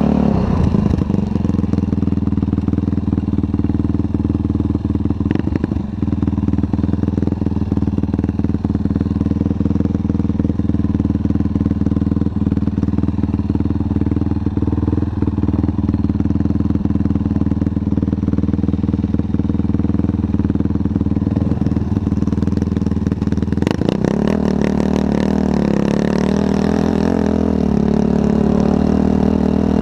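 Yamaha YFZ450 quad's single-cylinder four-stroke engine running at a steady, even pitch. About three-quarters of the way in it starts revving up and down as the quad pulls away across the sand.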